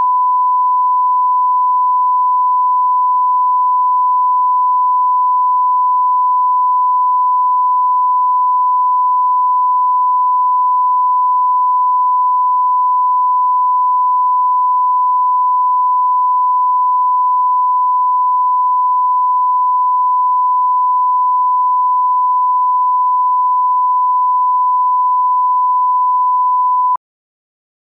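Broadcast line-up reference tone played with colour bars: one steady pure beep held unbroken at an even level, cutting off suddenly near the end.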